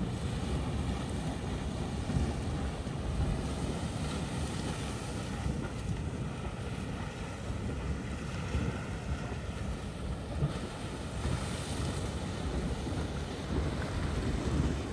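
Grotto Geyser erupting: a steady rush and splash of water, mixed with wind buffeting the microphone.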